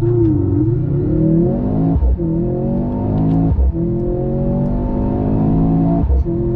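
Mercedes-AMG C43's 2.0-litre turbocharged four-cylinder under full-throttle acceleration, heard from the cabin. The engine note climbs in pitch through each gear and drops sharply at three upshifts, about 2, 3.5 and 6 seconds in. Part of the sound is the car's synthetic race-start sound played in the cabin, which is called fake.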